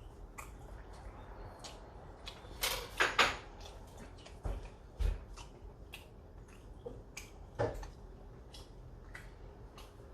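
Scattered clicks and light knocks of eating utensils against dishes at a meal table, the loudest a quick cluster about three seconds in, with a few single knocks after.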